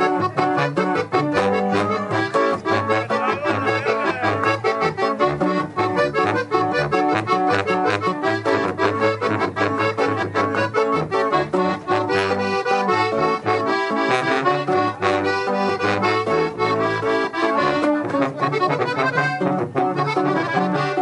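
A live instrumental cumbia played on accordion, with a tuba bass line and snare drum keeping the beat.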